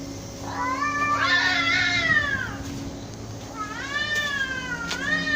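Cats caterwauling during a standoff: two long, wavering, drawn-out yowls, the first about half a second in and the second starting near the middle and running on, the warning howls cats give before or during a fight.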